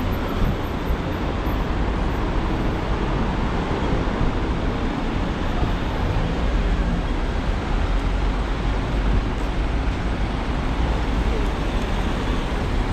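Steady traffic noise of a busy city street, with a heavy low rumble and no single event standing out.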